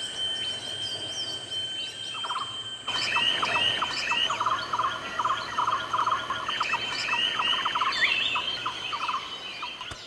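Recorded natural soundscape: many birds calling and chirping, with quick repeated trills and a steady high-pitched tone beneath them. The mix changes abruptly about three seconds in.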